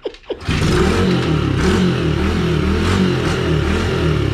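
A small vehicle engine catches about half a second in and runs loudly, its revs rising and falling unevenly.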